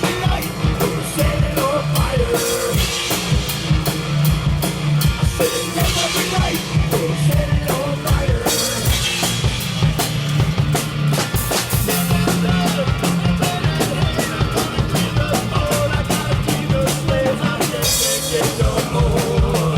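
Instrumental passage of a heavy rock song with a pounding drum kit: the kick, snare and cymbals are struck by a four-armed robot drummer, with a second robot working the hi-hat, over bass and guitar.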